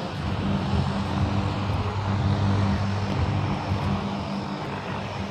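A steady, low engine drone with a hum, over a noisy outdoor background.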